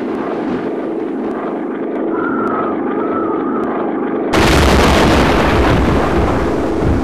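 Earthquake rumble sound effect: a steady rumble, then about four seconds in a sudden, much louder rumble with a heavy low end as the ground cracks open.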